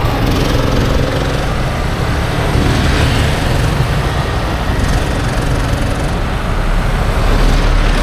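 Steady engine and road noise from a moving motor vehicle, with a heavy low rumble throughout.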